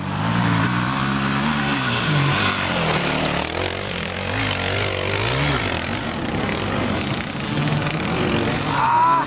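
Enduro dirt bike engines revving up and down as riders work up a steep dirt climb, the pitch rising and falling repeatedly, with a higher rising rev near the end.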